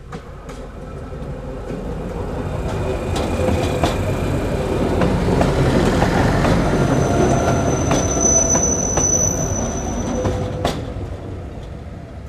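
Small narrow-gauge train of the Diakopto–Kalavryta railway passing by. The rumble swells to a peak in the middle and fades toward the end, with sharp wheel clicks over the rails and a thin high wheel squeal in the later part.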